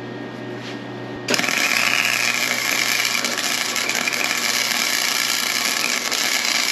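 Flux-core MIG arc struck about a second in, then crackling and spitting steadily as the Harbor Freight flux-core welder burns .030 Vapor self-shielded wire, over a steady low hum. Turned down to setting 7, the wire is still not running well, rough and stubborn.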